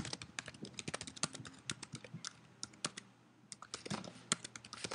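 Computer keyboard typing: quick, irregular keystrokes, with a brief lull about three seconds in.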